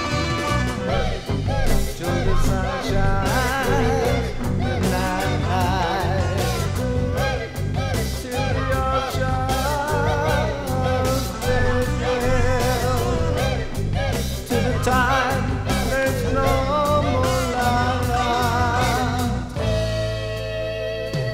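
Late-1960s/early-1970s-style rock band recording with a steady beat from drums and bass and a wavering lead melody over it. The arrangement changes about 20 seconds in.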